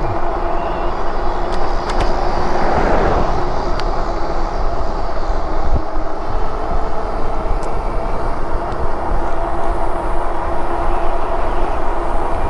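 Riding a Lectric e-bike: steady wind noise on the microphone and tyre rumble, with a steady hum running through it and a few faint ticks.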